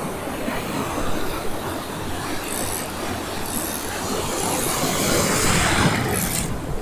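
Ocean surf washing in a steady rush with a low rumble. It swells to its loudest about five to six seconds in, as a wave breaks close by.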